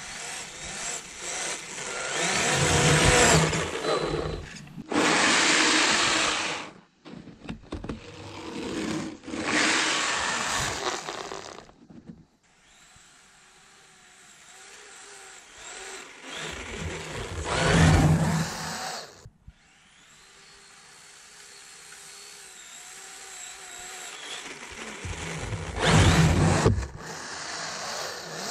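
Electric motor and track of a 1/8-scale radio-controlled snowmobile: the brushless motor whines and the track churns snow in several bursts of throttle a few seconds long, with quieter stretches between.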